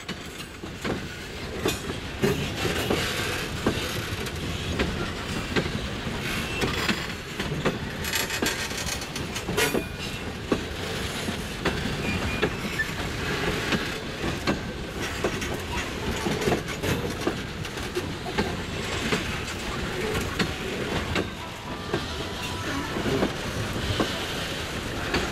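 Freight train of boxcars rolling slowly past, steel wheels clicking over rail joints above a steady rumble of the cars.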